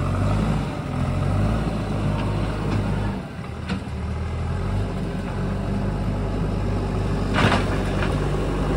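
Backhoe loader's diesel engine running under working load, its note dipping briefly about three seconds in, with a short burst of noise near the end.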